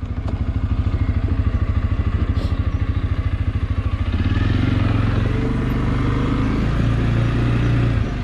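CFMOTO CForce 450L ATV's single-cylinder engine idling with an even, quick pulse, then about four seconds in the revs rise and it runs steadier and louder as the quad pulls away.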